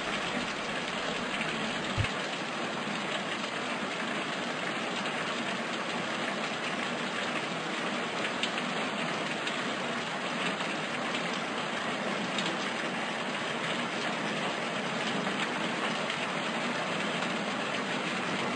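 Nutrient water being poured into a styrofoam tub, splashing steadily, with one low thump about two seconds in. Pouring from a height like this stirs air into the solution.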